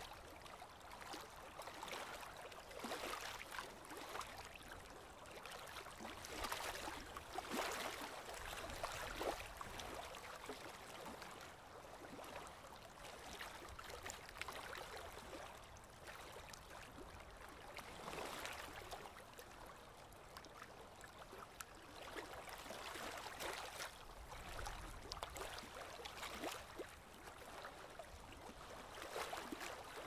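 Lake water lapping gently on a gravel shore: a soft, uneven wash that swells and eases every few seconds.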